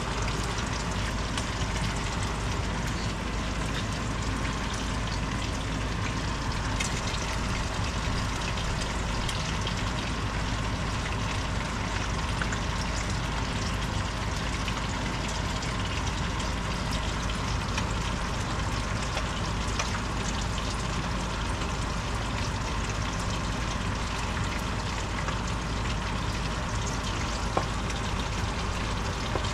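Curry chicken and cauliflower simmering in a frying pan on a gas stove: a steady bubbling hiss, with faint light clicks now and then as a spatula stirs it.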